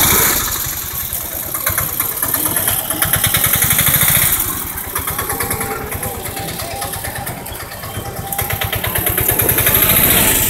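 Small vehicle engine running close by, heard from on board. Its firing pulses are dense and its speed swells twice, as if revving up under way.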